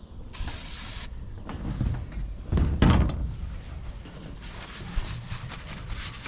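A short hiss of an aerosol can of brake cleaner spraying onto a paper towel, then a heavy thump a little under three seconds in. From about four and a half seconds, a paper towel rubs over the stainless steel chimney pipe, wiping it clean for the high-temperature silicone.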